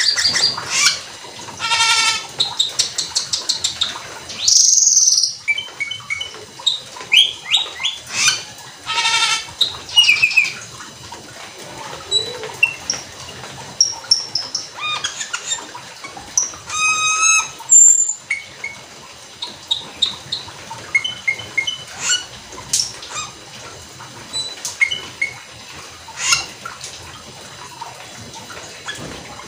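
Asian glossy starling (cucak keling) singing nonstop in quick runs of short chirps, clicks and whistles, with a few louder, ringing calls standing out.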